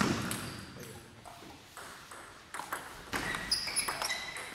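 Table tennis ball clicking off paddles and the table: one sharp hit right at the start as the ball is served, then a quicker run of hits in a rally from about halfway.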